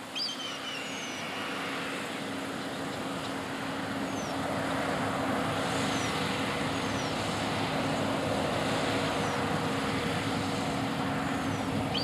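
Case IH 9230 Axial-Flow combine running under load as it cuts wheat with its draper header: a steady engine and threshing hum that grows louder as the machine comes closer. Short high chirps sound over it about once a second.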